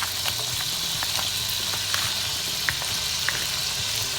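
Butter melting and sizzling in a hot frying pan: a steady hiss with scattered crackling pops.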